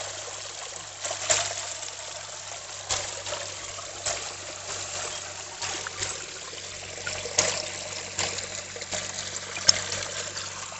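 Rainwater trickling and pouring over a concrete ledge into a shallow pool, a steady splashing with a few short, louder splashes.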